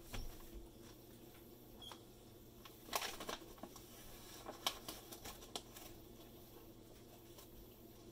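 Paper flour bag rustling and crinkling as its folded top is worked open, in a few short bursts, loudest about three seconds in, over a faint steady hum.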